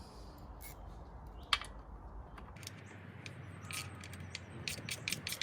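5mm Allen key clinking on the saddle clamp bolts under a bike seat as they are undone: scattered metallic clicks, a sharp one about a second and a half in, and quicker clicking near the end.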